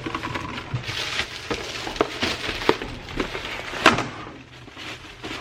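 Odds and ends being rummaged through and handled: rustling with scattered knocks and clatters of objects being picked up and set down.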